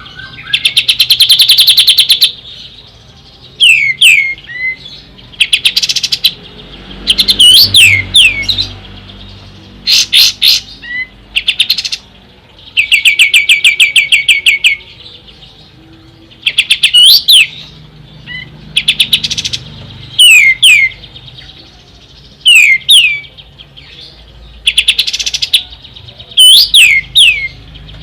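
Kapas tembak, a bulbul, singing loudly in repeated phrases every couple of seconds. Rapid trills of evenly repeated notes alternate with short, sharply falling whistled slurs.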